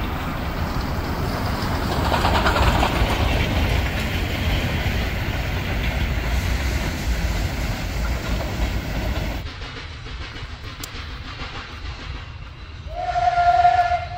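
Steam locomotive and its passenger coaches running past with a steady rumble of wheels on the track. Near the end, a steam locomotive's whistle blows one steady blast of about a second, the loudest sound here.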